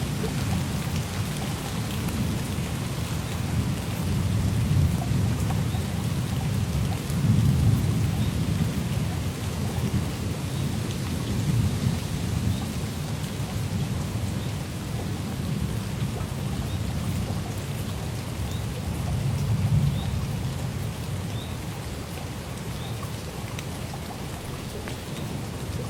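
Steady rain falling, with a low rolling rumble of thunder underneath that swells about a quarter of the way in and again about three quarters of the way through.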